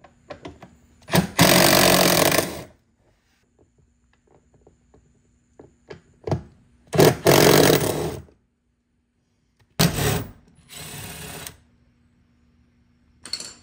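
Handheld power tool run in short bursts: three loud runs of about a second or so each, then a quieter, shorter run near the end.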